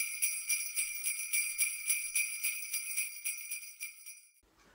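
Jingle bells shaken in a steady, even rhythm, fading away and stopping shortly before the end.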